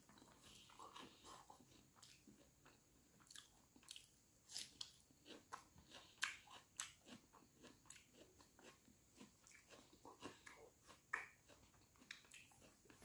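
Faint close-up eating sounds: a man chewing handfuls of rice, with irregular soft clicks and smacks of the mouth.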